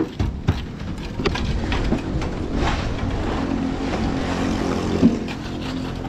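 A steady engine hum runs under a few sharp knocks, the clatter of concrete buckets and tools against the steel-deck slab.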